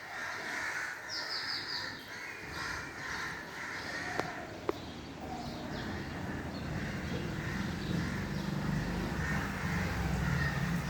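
Crows cawing again and again, with two sharp clicks a little after four seconds in and a low rumble that starts about two seconds in and grows stronger in the second half.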